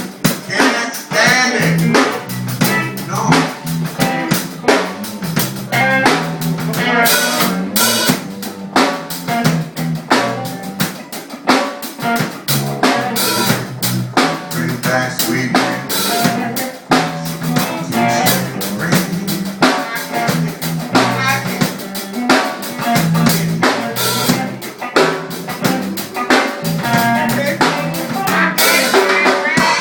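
A band playing an instrumental stretch of a blues-rock song: a drum kit with snare and bass drum keeping the beat over a bass line, with guitar above.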